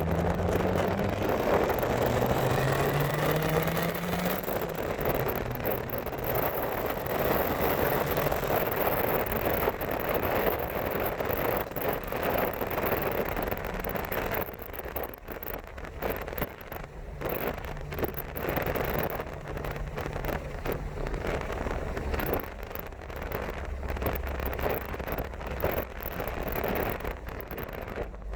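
Turbocharged Toyota Tacoma pickup being driven, its engine rising in pitch as it accelerates over the first few seconds, then running under steady road and wind noise.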